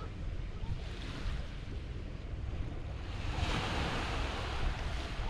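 Waves breaking on a beach, with one wash of surf swelling up a little past halfway, over steady wind noise on the microphone.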